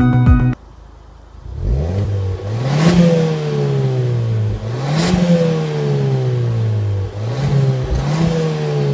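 Ford Fiesta ST2's turbocharged 1.6-litre four-cylinder EcoBoost revved through its exhaust while parked, three times: each rev climbs quickly, then falls slowly back to idle.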